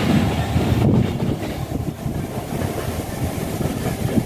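A lone Direct Rail Services locomotive passes, with a steady low rumble of engine and wheels that is loudest in the first second.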